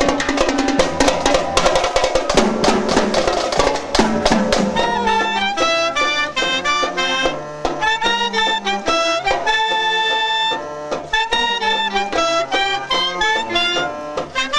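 A youth wind band playing live, with clarinets, alto saxophone, trombones, trumpets and a drum kit. For the first few seconds the full band plays loudly over dense drumming; after about five seconds it thins to a clearer melody over a steady beat.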